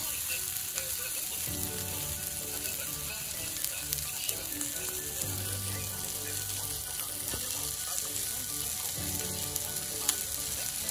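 Chicken cartilage (yagen nankotsu) frying in oil in a black iron pan over a wood fire: a steady sizzle with a few sharp pops.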